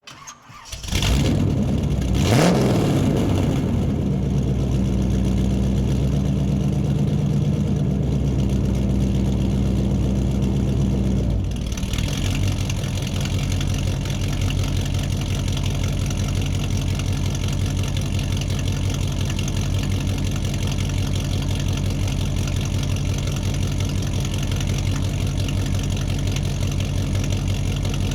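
Muscle car engine in a big room, starting up and catching about a second in, then blipping the throttle once. It holds a fast idle, then about eleven seconds in drops to a lower idle with an even, pulsing beat.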